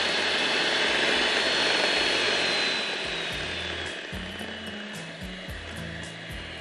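Electric mixer running, beating an egg into brownie batter. Its motor whine holds steady, then drops away and fades about three seconds in.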